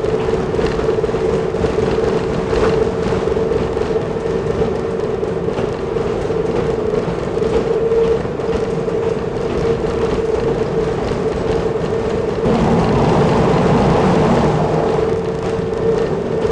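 Kiha 10 railbus running along the line at steady speed: engine and wheel-on-rail running noise with a constant whine, growing louder for a couple of seconds about three-quarters of the way through.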